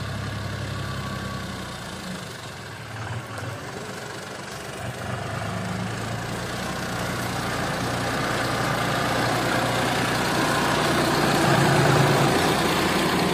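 John Deere 5050D tractor's diesel engine running steadily as the tractor drives with a trailer in tow, growing louder as it approaches and passes close by about twelve seconds in.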